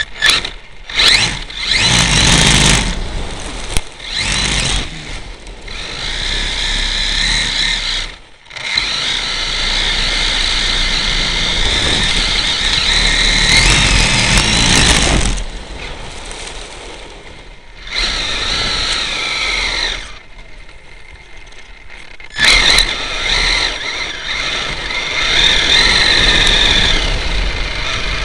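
HPI E-Firestorm Flux electric RC truck's brushless motor and drivetrain heard up close from a camera on the truck: a high whine rising and falling in bursts as the throttle is worked, with tyre and chassis noise. It nearly cuts out about 8 s in and goes quieter for a couple of seconds around 20 s.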